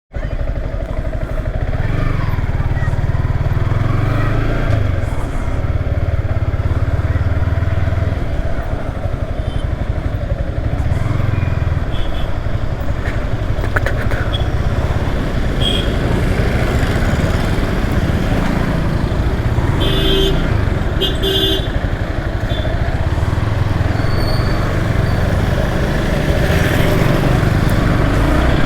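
Yamaha R15 V3 motorcycle riding on the road, its single-cylinder engine running under heavy wind rush on the camera. A vehicle horn honks twice in short blasts about two-thirds of the way through.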